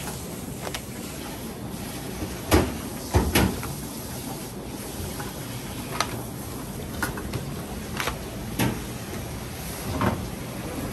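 Irregular knocks and clacks of kitchen work in an udon kitchen, objects being set down and handled, over a steady background hum; the heaviest thumps come in a cluster about two and a half to three and a half seconds in.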